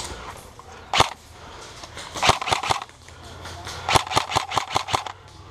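Airsoft guns firing: a single shot about a second in, a quick burst of four or five shots about two seconds in, and a faster string of about eight shots near four seconds.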